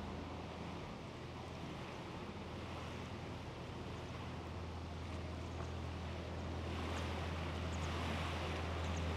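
Widebeam boat's engine running steadily under way, a low hum beneath a wash of water and wind noise, growing a little louder over the last few seconds.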